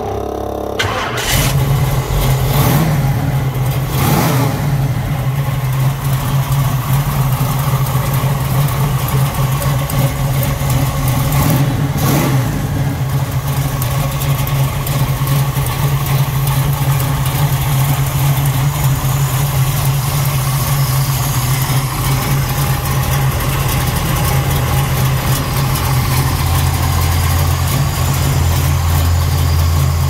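1969 Camaro SS's 396 big-block V8 cranking and catching right at the start, then idling steadily. There are two short revs within the first five seconds.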